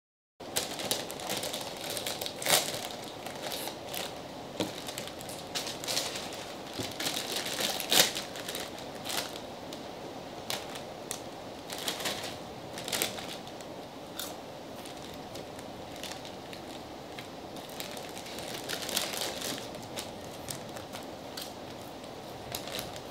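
Foil-lined potato-chip bags crinkling as hands dig into them and handle them, with irregular sharp crackles. The crackles are busiest in the first half, thin out, and pick up again briefly near the end.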